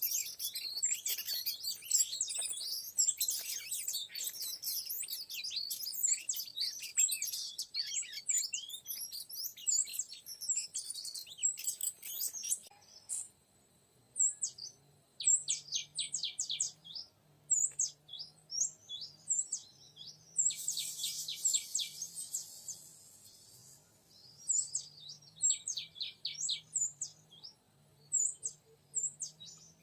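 Oriental magpie-robin song: a dense run of quick chirps and whistled phrases that breaks off abruptly about twelve seconds in, followed by separate bursts of rapid repeated notes.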